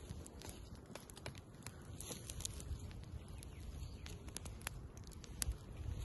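Wood campfire crackling, with many irregular sharp pops over a low steady noise.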